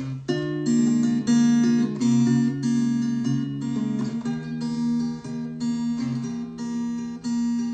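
Acoustic guitar played alone, a new chord or pattern picked roughly every half second to second with the notes left ringing. It is the instrumental opening of a song, before the vocal comes in.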